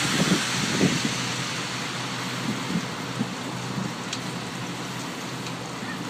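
Steady outdoor hiss of a snowstorm, with a few dull low thuds in the first second.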